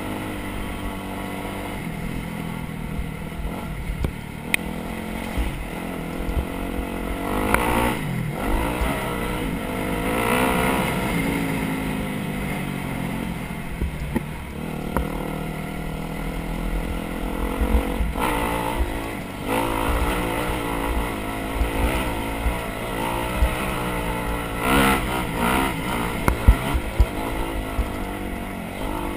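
Off-road vehicle's engine running along a rough trail, its pitch rising and falling as the throttle opens and closes, with frequent low knocks and rattles from the bumps.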